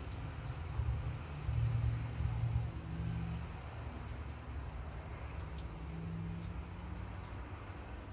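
Outdoor storm ambience: a low, uneven rumble under a steady hiss, with a small bird giving short, high chirps every second or so.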